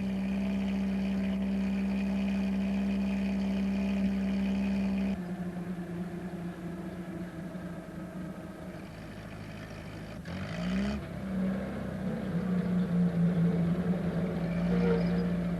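A small van's engine running steadily as it drives. Its note changes about five seconds in and rises again around ten seconds in.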